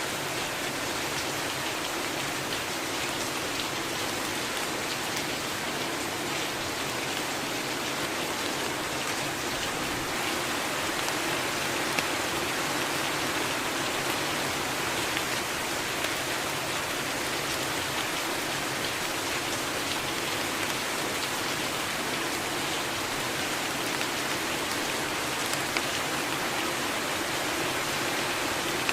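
Steady rainfall, an even hiss with a couple of sharper single drop hits about twelve seconds in and near the end.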